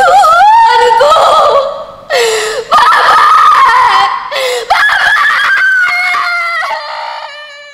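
A young woman screaming and wailing in anguish: several loud, long cries that slide up and down in pitch, broken by short gasps. The last cry is held and fades away near the end.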